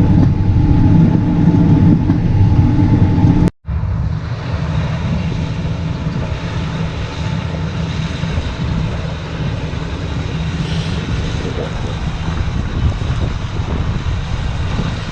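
Vehicle engine running steadily. About three and a half seconds in the sound cuts out briefly and a slightly different steady engine drone takes over.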